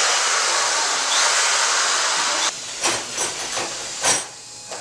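A power tool's loud, steady rushing hiss cuts off suddenly about two and a half seconds in. It is followed by a few sharp knocks and clicks, the loudest near the end.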